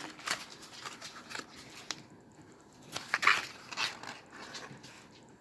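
Paper rustling and crinkling as a small folded paper origami piece is handled and unfolded, with the loudest rustles about three to four seconds in.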